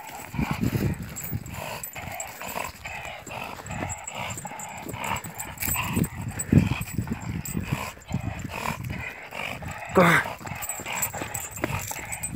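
Pit bull-type dog, chained and gripping a log in its jaws, making low irregular straining noises. It gives one short whine about ten seconds in.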